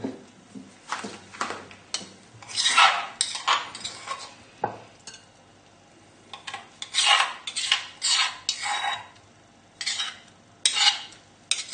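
A utensil scraping the inside of a mortar in irregular strokes with the odd sharp knock, as a mustard-and-garlic marinade paste is scooped out into a bowl.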